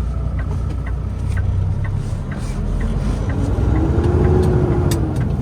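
Semi truck's diesel engine running, heard inside the cab, with the turn signal clicking about twice a second. About three and a half seconds in, the engine note rises and grows louder as the truck pulls away.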